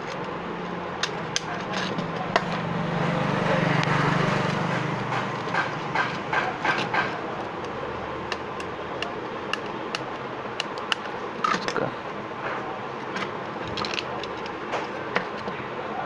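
Small plastic clicks and taps as a modular switch is pressed and screwed into a switchboard plate with a screwdriver, over steady background noise. A low hum swells and fades over the first few seconds.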